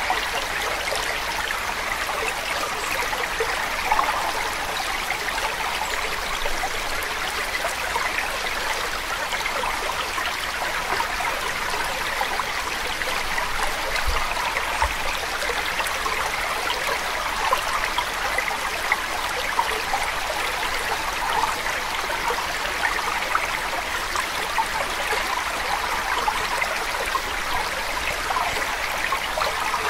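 Steady running water, like a babbling stream, with a fine, continuous trickling texture.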